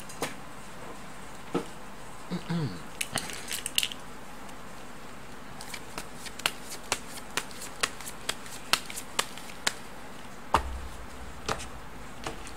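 Fortune-telling cards being shuffled and drawn by hand: a run of sharp card snaps and flicks, about two a second in the middle stretch, with a short low murmur of voice a couple of seconds in.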